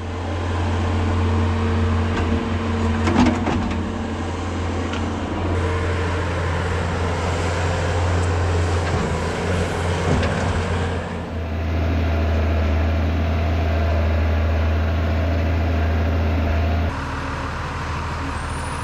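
Tractor engines running steadily, in several short clips joined by abrupt cuts, with a few sharp knocks about three seconds in.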